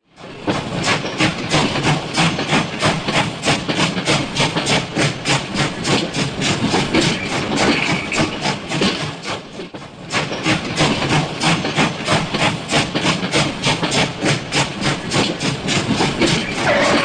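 Steam locomotive chuffing in a steady rhythm of about four puffs a second, with a hiss of steam. It dips briefly about nine seconds in and then picks up again.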